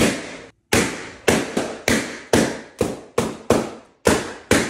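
A rapid string of balloons being popped one after another, about two or three sharp bangs a second, each ringing briefly.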